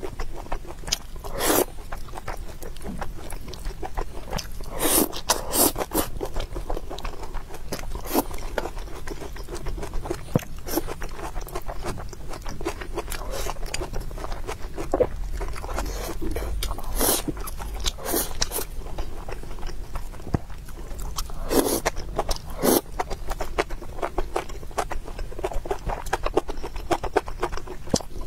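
Close-miked eating: wet chewing and mouth smacks of someone eating soft rice with scrambled egg and tomato. There are many small clicks and a number of louder, sharper smacks, and now and then chopsticks scrape against a bowl.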